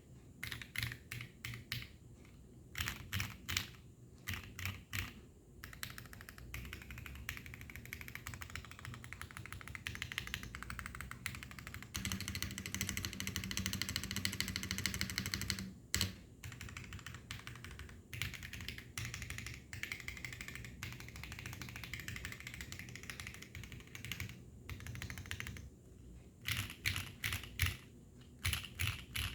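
Custom Geonworks F1-88 mechanical keyboard with Gateron Golden Cap V2 switches and JTK Emerald keycaps being typed on. It starts with spaced single key presses, moves into fast continuous typing that is busiest about halfway through, and goes back to spaced single presses near the end.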